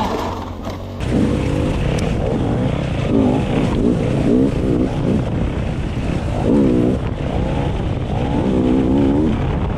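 Dirt bike engine revving up and down as the throttle is worked, its pitch rising and falling again and again, with a brief ease-off about a second in.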